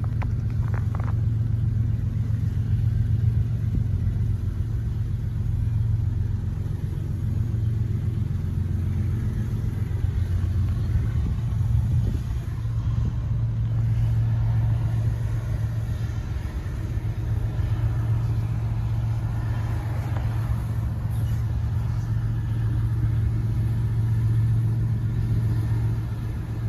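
Diesel locomotive engine running with a steady low drone, with a broader rumble building in the second half as the train draws nearer.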